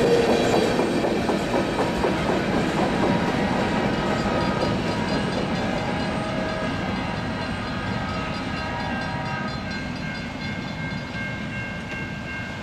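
Freight cars rolling past with wheels clacking over the rail joints, the last car going by at the start. The train's rumble then fades steadily as it moves away, with a few steady high ringing tones over it in the middle.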